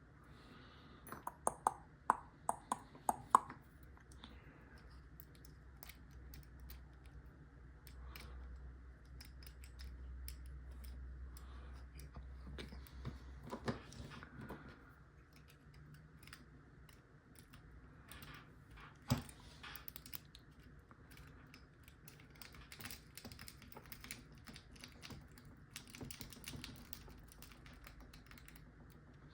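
Lock pick and tension wrench working in a lock's keyway: faint scattered clicks and scrapes of metal on metal. A quick run of sharper clicks comes a second or two in, and a single louder click about nineteen seconds in.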